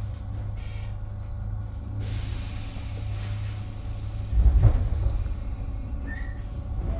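Tobu 8000-series electric train running, heard from the cab, with a steady low hum. About two seconds in a sudden hiss of air starts and fades over a couple of seconds. Just after halfway there is a heavy low thump.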